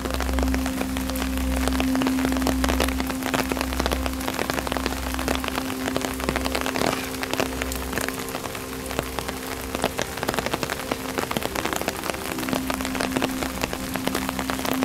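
Steady rain falling, with many close individual drops ticking sharply over the hiss of the downpour. A steady low hum runs beneath it.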